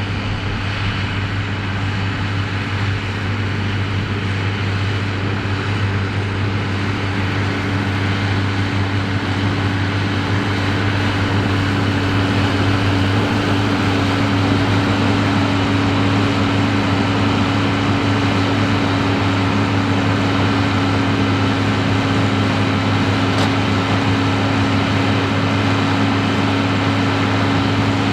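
New Holland TM155 tractor engine running steadily while pulling a Claas Variant 385 round baler at work; the drone slowly grows a little louder.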